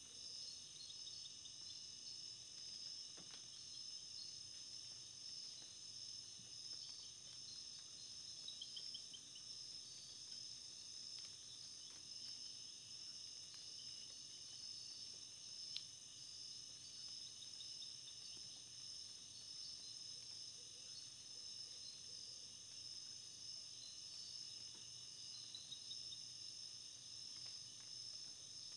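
Faint, steady high-pitched chorus of insects, several continuous trilling tones at once, with a few short rapid chirps now and then and a single click about halfway through.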